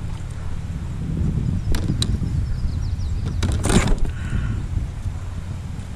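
Wind rumbling on the microphone, with a few sharp clicks and knocks and a louder rush of splashing about three and a half seconds in, as a hooked bass is lifted from the water into a plastic fishing kayak.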